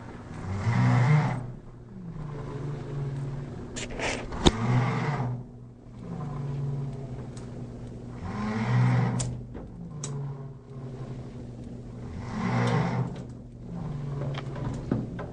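A person snoring loudly and rhythmically: four rough, buzzing snores about four seconds apart, with a quieter droning breath between them. A few sharp clicks, the loudest about four and a half seconds in.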